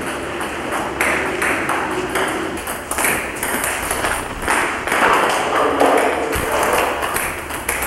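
Table tennis rally: a celluloid ping-pong ball struck back and forth by rubber-faced paddles and bouncing on the table, a quick, even run of sharp clicks.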